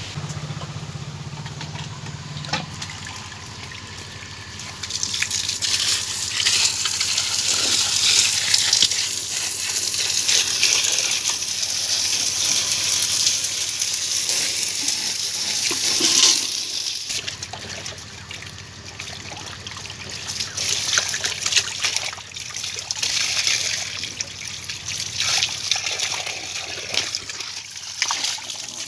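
Water being poured and splashed by hand over live magur (walking catfish) in a wicker basket. It gets much louder about five seconds in, eases off about seventeen seconds in, and turns into lighter, uneven splashing.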